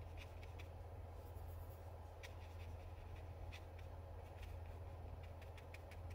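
Faint, light ticks of a fine watercolour brush making short fur strokes on paper, over a steady low hum.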